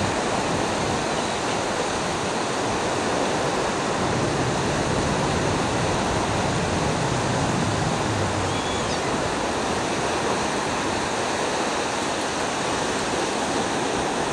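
Ocean surf breaking and washing on a sandy beach, a steady even rush of noise with no single wave standing out.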